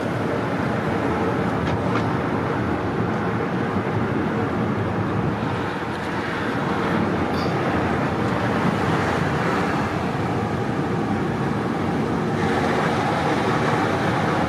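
Road noise inside a moving car's cabin: steady engine and tyre rumble as it drives along. It grows brighter and more hissy about twelve seconds in.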